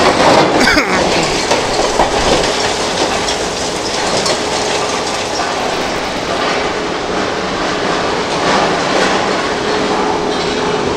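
Iron ore crushing and screening plant running: loud, continuous machinery noise with a dense clatter of ore and a steady hum underneath.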